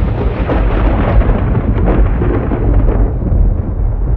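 Loud rolling thunder: a heavy low rumble with crackles running through it, easing slightly after about three seconds.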